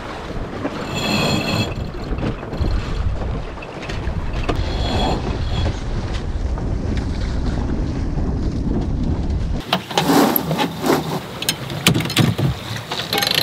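Wind buffeting the microphone over water rushing past a sailboat's hull. About ten seconds in, this cuts to a cockpit winch being cranked, its ratchet giving a run of quick, irregular clicks as a sheet is hauled in during a tack.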